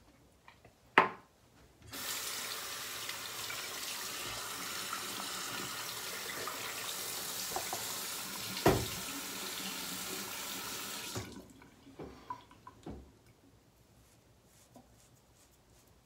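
Bathroom sink tap running steadily for about nine seconds, then turned off. A sharp click comes just before the water starts, a knock sounds midway through the running water, and a few small clicks follow after it stops.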